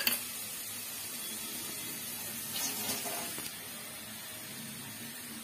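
Tamarind water simmering and sizzling in a frying pan of masala-coated fresh jawla shrimp just after it is poured in: a soft steady hiss, which swells briefly a little past the middle.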